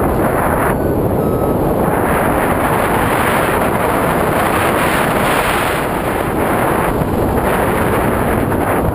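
Airflow rushing over a flying paraglider pilot's camera microphone: loud, steady wind noise, briefly thinner in its upper part about a second in and again around six to seven seconds.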